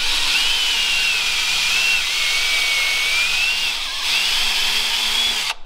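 Cordless drill spinning a countersink bit into a wooden block. Its motor whines steadily, wavering in pitch as the bit cuts, then stops abruptly near the end.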